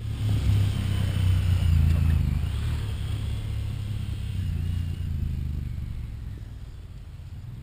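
Two Honda Pioneer 1000-5 side-by-sides with parallel-twin engines accelerating hard off a drag-race launch across a stubble field. Loudest about two seconds in, then fading over the last few seconds as they pull away.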